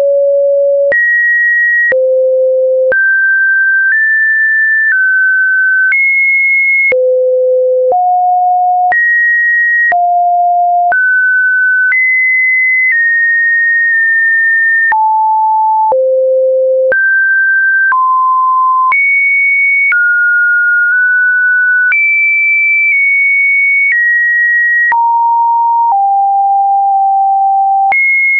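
A pure electronic sine tone that jumps to a new, unrelated pitch once a second, ranging between middle and high notes, with a faint click at each change.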